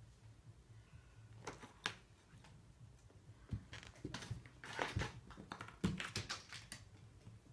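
A cat batting a nail file around on a wooden parquet floor: light taps, clicks and scrapes of the file and the cat's paws. A few taps come about one and a half to two seconds in, then a busier run from about three and a half to six and a half seconds.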